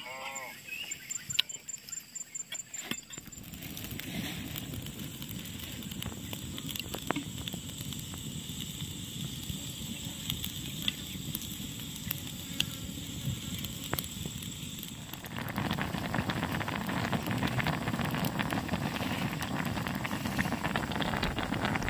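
Fish curry in coconut milk boiling in a wide wok over a wood fire: a dense crackling, bubbling sound with occasional sharp pops from the burning wood. It gets louder and fuller about two-thirds of the way in, as the curry froths up in a hard boil.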